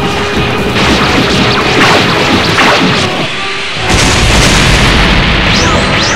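Loud cartoon crash and explosion sound effects mixed with music, with a few falling swoops early on and a deep boom setting in about four seconds in as a blast throws a character into the sky.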